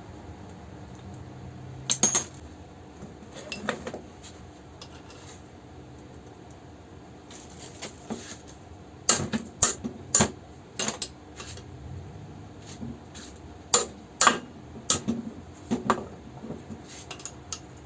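Metal hammer parts and tools clinking and knocking against each other and the workbench during hand reassembly, in irregular clusters of sharp clicks.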